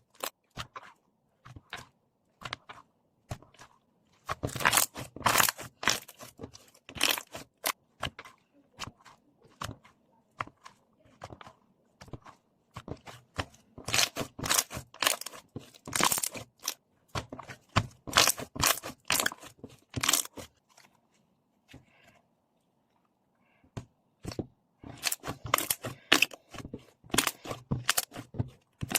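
Slime being squeezed, pressed and stretched by hand, giving runs of crackling pops and crunches. There is a pause of about three seconds a little past two-thirds of the way through before the crackling starts again.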